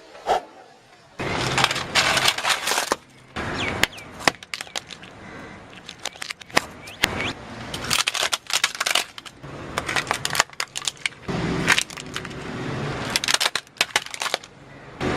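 Brittle material being crushed and broken: bursts of crunching, cracking and rapid snapping that start and stop abruptly, with a few short gaps.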